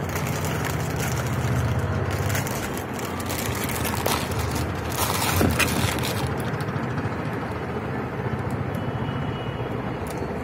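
Steady low rumble and hiss of background noise, with a few short clicks or rustles near the middle.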